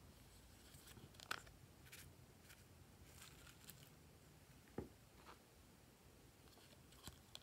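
Quiet handling of a small plastic box of confetti: a few sharp clicks and faint light crackles as the box is handled and tipped over a dish of glue.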